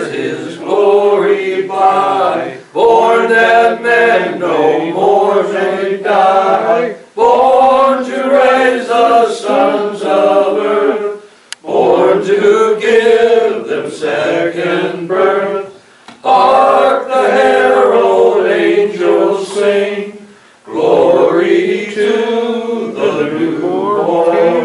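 A small congregation singing a hymn together in phrases of about four to five seconds, with short breaks between them.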